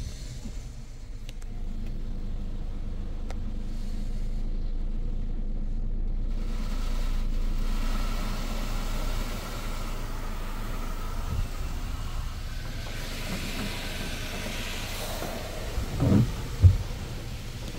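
Touch-free automatic car wash heard from inside the car's cabin: a steady low rumble, with a hiss of water spray against the car building up about thirteen seconds in. Two loud thumps come near the end.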